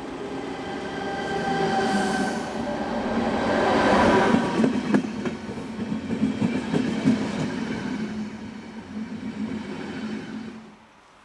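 ČD class 471 CityElefant double-deck electric unit passing close by, whining in several steady tones, with wheels clicking over the rail joints as the cars go past. It is loudest about four seconds in, and the sound cuts off suddenly near the end.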